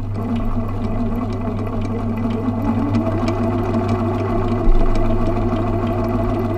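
Husqvarna Zig-Zag 1010 sewing machine running steadily while sewing zig-zag stitches through fabric: a motor hum with rapid, regular clicking from the needle mechanism.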